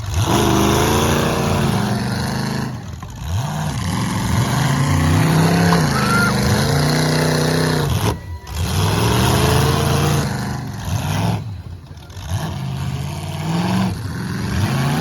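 Demolition derby cars' engines revving, pitch climbing and falling again and again with several engines overlapping, dropping away briefly three times.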